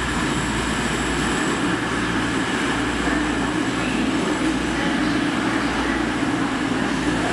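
CrossCountry Voyager diesel multiple unit moving along a station platform, its underfloor diesel engines and running gear making a steady rumble.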